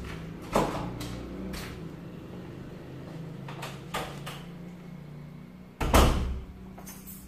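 A room door being opened and closed, with several sharp knocks and a loud thump about six seconds in, over a faint low hum.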